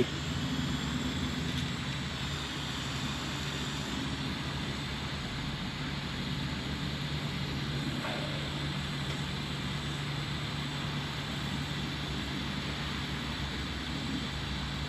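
Steady machine hum over an even hiss.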